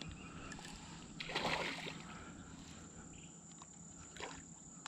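Steady high insect drone over the wash of flowing river water, with a brief louder rush of noise about a second and a half in.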